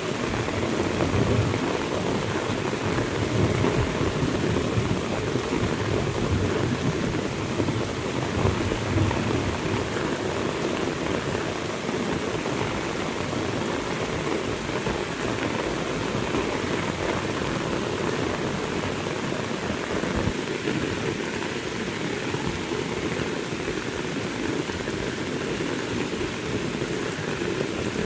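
Heavy rain pouring steadily, with low rumbles of thunder during the first several seconds.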